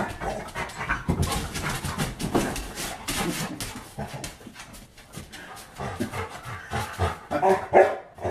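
A large dog panting and making noises while play-wrestling, with a few short pitched calls near the end.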